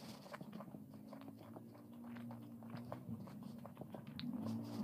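Close-miked eating sounds: chewing with many small wet mouth clicks, and fingers picking at a beet pakora on a glass plate. A low steady hum grows louder near the end.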